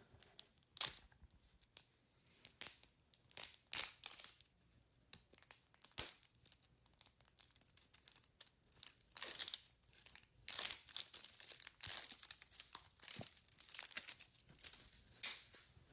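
Plastic packaging of a Sonic Prime mystery ball being opened by hand: crinkling and tearing with many small scattered clicks, busiest in the second half.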